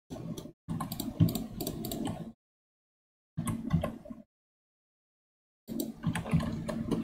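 Computer keyboard and mouse clicking in quick runs, picked up by the desk microphone. The sound is chopped into three bursts by a noise gate, with dead silence between them.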